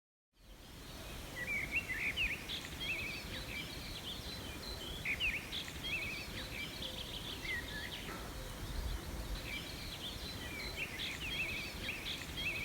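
Several small birds chirping and trilling, with many short, overlapping calls over a steady low outdoor background hiss. A low rumble comes about eight seconds in.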